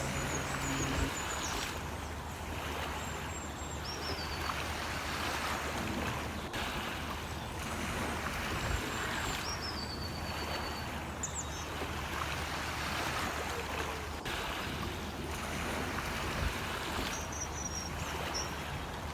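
Steady rush of sea water over a constant low engine hum, as aboard a ship under way, with short high bird chirps coming through now and then.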